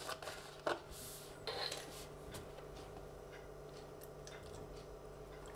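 Faint handling sounds of a milk carton: a few small clicks and a brief rustle in the first two seconds as its plastic screw cap is twisted off, then milk pouring quietly into a plastic blender beaker.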